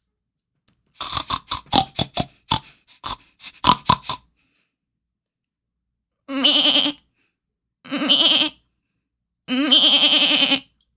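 A woman's voice imitating a goat or sheep: three wavering 'baa' bleats, each about a second long, starting about six seconds in. They are preceded by a quick run of short, sharp sounds between about one and four seconds in.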